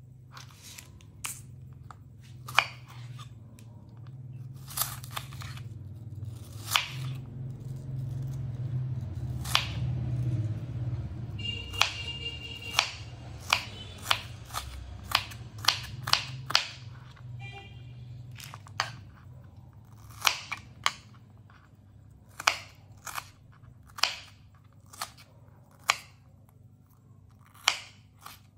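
Irregular sharp chops of a kitchen knife cutting on a board, one or two a second and coming closer together after the middle, over quiet background music.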